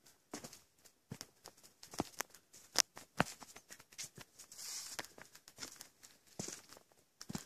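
Footsteps on a dirt forest trail: irregular steps a few tenths of a second apart, with a brief rustle about halfway through.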